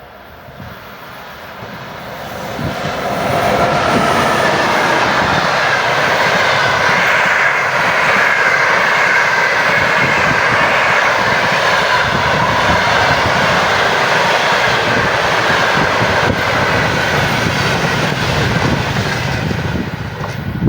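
A train passing close by: the noise builds over the first three seconds or so, then stays loud and steady, a rush of running gear with a high, drawn-out tone above it that slowly falls in pitch.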